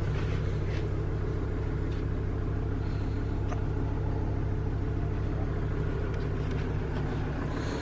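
Steady low rumble of a vehicle engine running, heard from inside the caravan, with a few faint clicks.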